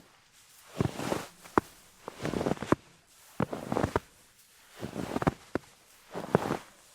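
Footsteps crunching in snow: a slow walk of about five steps, each a short crackling crunch with a pause between.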